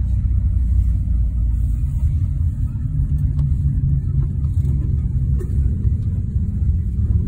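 Steady low rumble of a moving road vehicle heard from inside its cabin: engine and tyre noise at cruising speed.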